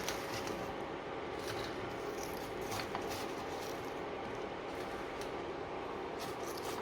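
Steady kitchen background noise with scattered light clicks and rustles as fried potato chips are handled and arranged on a plate.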